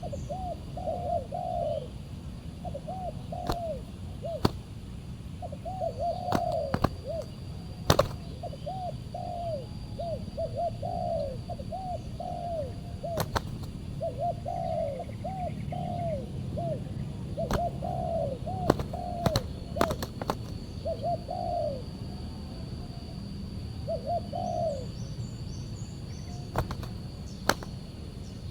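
Spotted doves cooing in repeated runs of three to five arching, hoarse coos. Sharp clicks are heard now and then.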